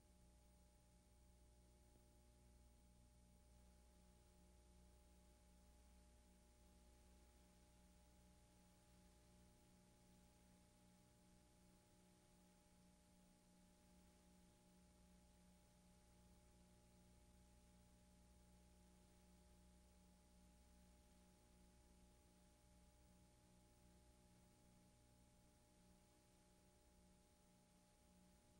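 Near silence: only a faint, steady hum of several fixed tones over a low hiss, with no events.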